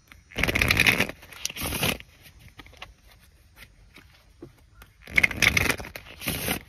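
Two bursts of rustling, scraping noise close to the microphone, each about a second and a half long: the first just after the start, the second about five seconds in.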